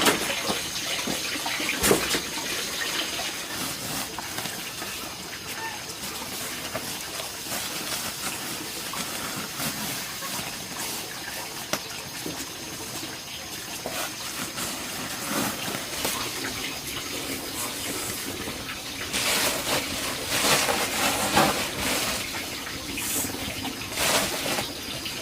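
Water running and splashing, with a few short knocks, and a louder stretch of splashing near the end.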